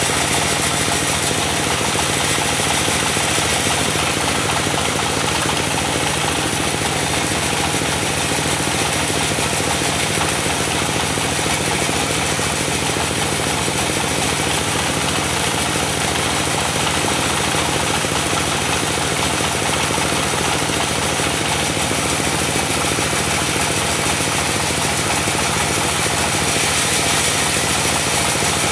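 Diesel-powered mobile sawmill running steadily, its engine note constant under a dense hiss of the saw.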